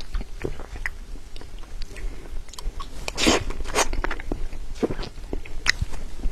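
Close-miked mouth sounds of someone eating soft cream cake: irregular wet smacks and clicks of chewing, with a louder sticky smack a little after three seconds in and another near four seconds.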